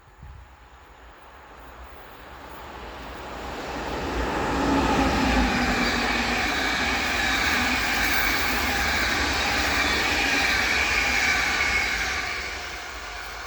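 A train passing the lineside at speed: the noise builds over about four seconds, stays loud with steady high-pitched tones over the rumble, then drops away near the end.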